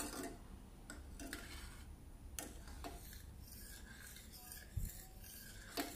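Metal ladle stirring milk reducing to palkova in a stainless steel pan, faint rubbing with a few sharp scrapes against the pan's sides and bottom, which keeps the thickening milk from catching.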